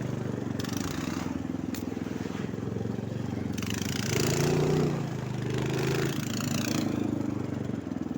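Snowmobile engine running while riding, its pitch rising as it is revved about four seconds in and again a little later.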